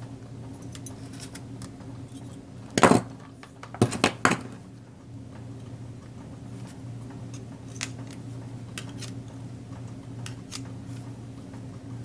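Thin craft wire being wound and twisted with small pliers: light metallic clicks and scrapes, with a few louder clicks about three and four seconds in, over a steady low hum.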